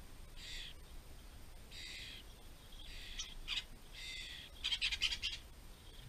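Fledgling starling begging from its parent: a run of about six short, harsh calls, the loudest and longest about five seconds in.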